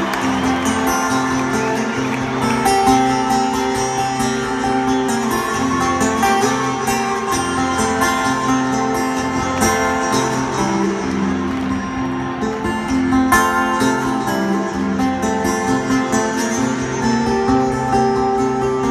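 Solo acoustic guitar fingerpicked in a quick, rolling pattern of plucked notes over a repeating bass line, amplified live in an arena.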